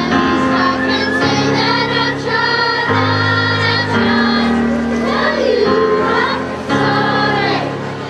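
Children's chorus singing a song in unison, over an instrumental accompaniment of steady bass notes that change about every second.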